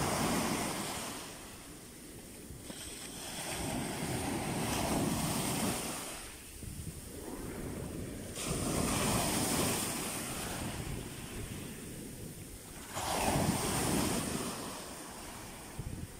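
Small sea waves breaking and foamy surf washing up over a sandy beach, swelling and draining back in four surges about four seconds apart.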